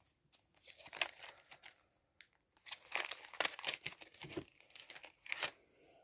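Soft rustling and crinkling of baseball cards and wax-paper pack wrappers being handled, in a run of short scratchy bursts that is busiest in the middle.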